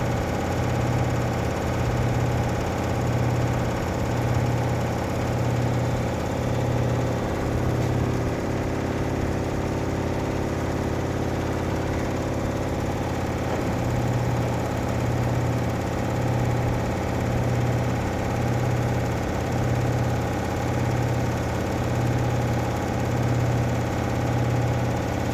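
Washing machine running and vibrating, a steady machine hum with a low throb about once a second. The throbbing drops out for several seconds midway, then comes back.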